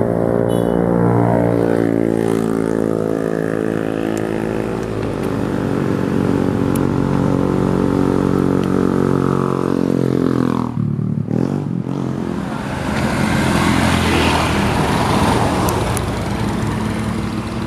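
Truck engine running with a steady drone whose pitch sinks slowly over about ten seconds. Around eleven seconds in the note breaks off and gives way to a rougher, noisier engine sound.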